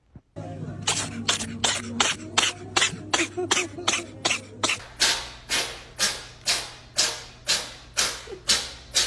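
A rhythmic beat of sharp hissing hits, each fading quickly, at about three a second and slowing to about two a second, over a steady low hum.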